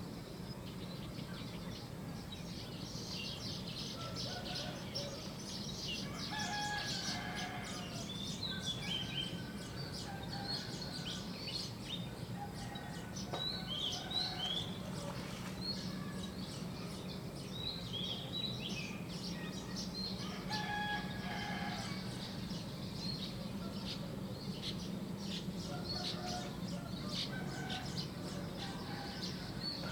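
Small songbirds chirping and singing busily, with roosters crowing every several seconds, over a steady low hum.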